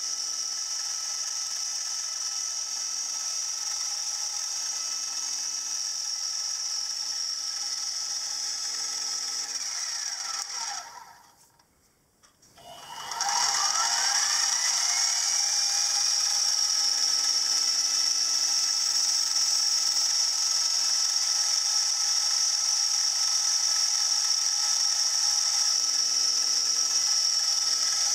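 Hobby milling machine's spindle running with a steady high whine while drilling out the crankshaft hole in a cast crank web. About ten seconds in it winds down to near silence, then starts again about two seconds later, its whine rising back up to speed.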